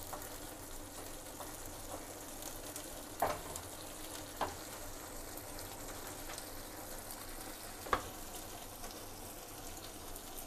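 Thick chicken manchurian gravy bubbling and sizzling in a nonstick frying pan while a wooden spatula stirs it, with about three light knocks of the spatula against the pan.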